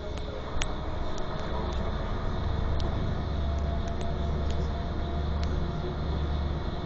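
Inside a moving intercity coach: steady low engine and road drone, with a few light clicks and rattles from the cabin.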